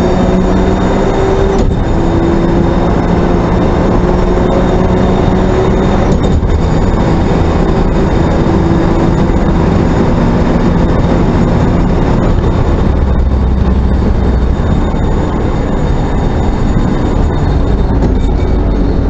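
Race car engine at full throttle heard from inside the cabin, with heavy wind and road noise at high speed; the engine note climbs and cuts briefly twice in the first seven seconds as it shifts up, then holds steady along the straight.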